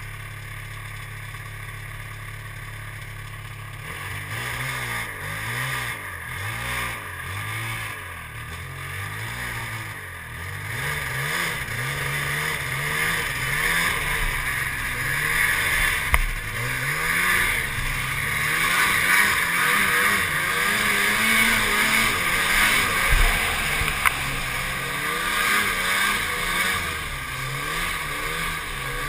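Snowmobile engine idling steadily, then revving up and down repeatedly from about four seconds in as the sled gets moving. A rushing noise grows louder from about twelve seconds in, with a few sharp knocks.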